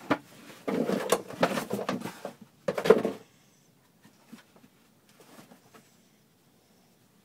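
Bouvier puppy scratching and digging at a woven doormat, the mat scraping and knocking on wooden porch boards, loud for about three seconds and then dying down to a few faint scuffs.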